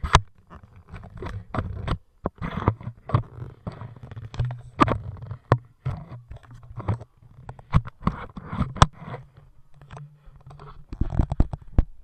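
Handling noise from an action camera in its plastic camera case: rubbing and scraping on the case, broken by many sharp clicks and knocks, with a dull low rumble under them.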